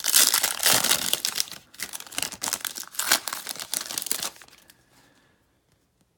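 Plastic-foil trading card pack wrapper crinkling and tearing as it is opened, many quick crackles for about four seconds, then stopping.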